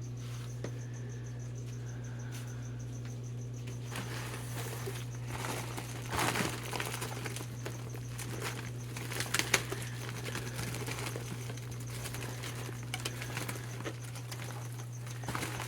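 Plastic shipping bags and packing material rustling and crinkling as they are handled, with a louder crackle about six seconds in and another near ten seconds, over a steady low electrical hum.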